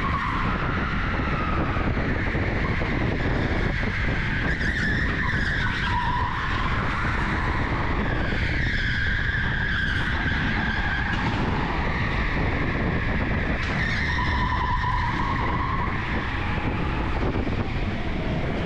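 Onboard sound of an electric go-kart at racing speed: a steady rumble of tyres and chassis, with a high whine that rises and falls in pitch as the kart speeds up, slows and corners, with tyre squeal mixed in.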